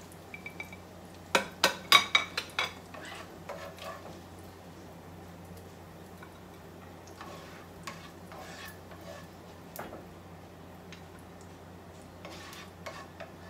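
A slotted spatula scraping and knocking against a frying pan and a plate as crumbled cooked sausage is scooped out. A quick run of sharp clatters comes about a second and a half in, followed by scattered lighter scrapes and taps.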